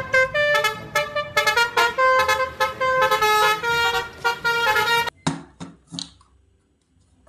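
Indonesian bus "telolet" multi-tone horn playing a quick melody of changing notes, ending with a few short separate toots about five to six seconds in.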